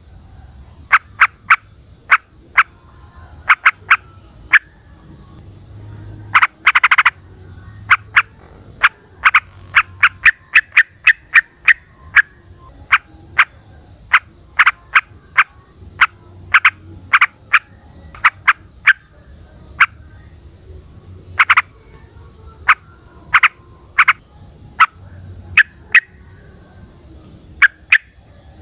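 Yellow-vented bulbul (trucukan) calling in short, sharp notes, singly, in pairs and in quick runs. A steady, pulsing insect chirring runs underneath.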